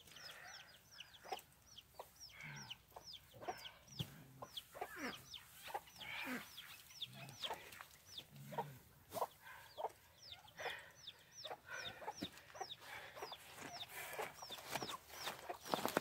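Chickens clucking, with many quick, high, falling chirps repeating throughout and scattered light clicks and rustles.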